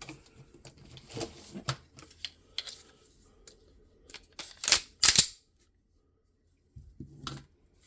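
Clicks and knocks of a Glock 19 pistol's parts being handled during reassembly after the recoil spring is fitted, with two loud sharp clacks about five seconds in.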